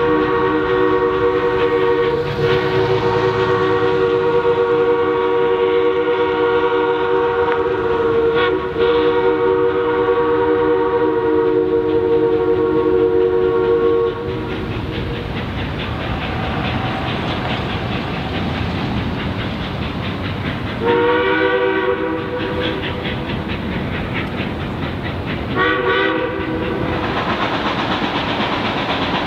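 Chime steam whistle of the Durango & Silverton's K-28 steam locomotive 473 blowing one long held blast for about the first half, broken only briefly twice, over the running noise of the locomotive and train. Once the whistle stops, the train noise goes on a little quieter, with two more whistle blasts later: a longer one and then a short one.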